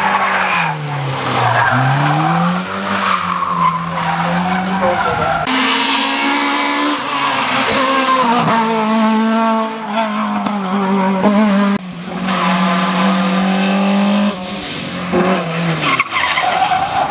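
Rally car engine at high revs: the pitch dips about a second in as it slows, then climbs and holds high as the car accelerates, with a hiss of tyre noise from about a third of the way in. The engine note drops away near the end.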